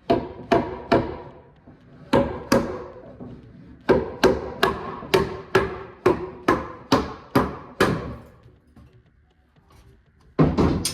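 A hammer striking wood repeatedly, about two blows a second in short runs with a brief pause, then a single louder knock near the end.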